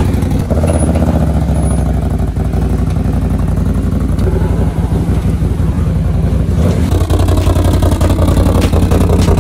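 Can-Am Renegade 1000 ATV's V-twin engine running steadily with a deep, even rumble; about two-thirds of the way in it turns rougher and harsher.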